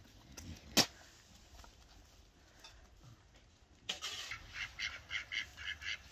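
A single sharp click about a second in, then from about four seconds in ducks quacking in a rapid run, about five calls a second.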